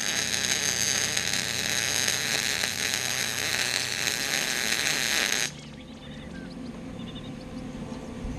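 Wire-feed welder arc crackling and hissing steadily as a bead is run back over a porous weld to cover the holes; it stops suddenly about five and a half seconds in.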